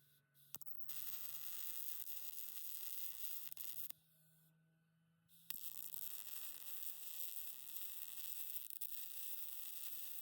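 MIG welding arc sizzling in two runs: about three seconds starting about a second in, then after a short pause a longer run of about six seconds.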